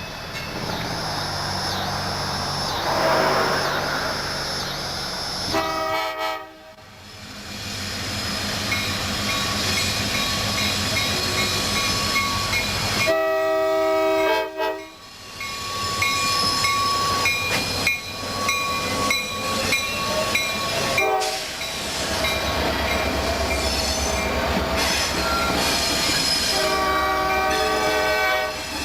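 Diesel freight train passing, with its locomotive's air horn sounding a chord of several tones in short blasts three times: about six seconds in, around thirteen seconds, and near the end.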